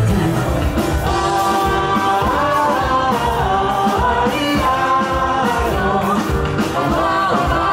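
Music with singing: a song with a sung melody over a full band.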